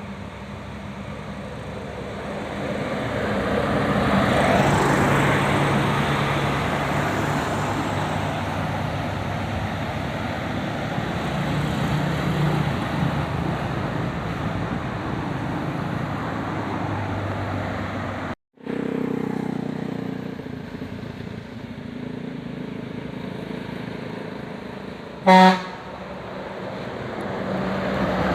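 A large bus passes by with engine and tyre noise that swells about four seconds in and slowly fades, broken by a sudden cut-out. Near the end a bus horn gives one short, loud toot on a single pitch.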